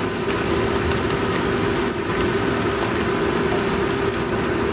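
Napa cabbage sizzling in a hot wok, freshly added to the stir-fried garlic and dried shrimp: a steady frying hiss over a low steady hum.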